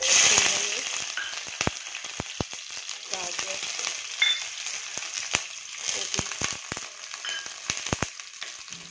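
Sliced green capsicum, carrot and cabbage tipped into hot oil in a kadai, sizzling loudly the moment they hit the oil. It settles into steady frying with scattered crackling pops.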